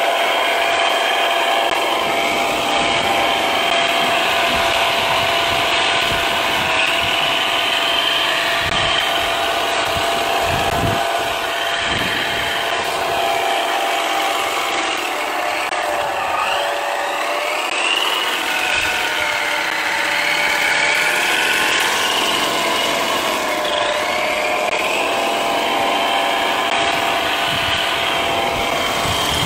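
RC car's electric drive motor and geartrain whining as the wheels spin freely off the ground, the whine rising and falling in pitch as the throttle changes.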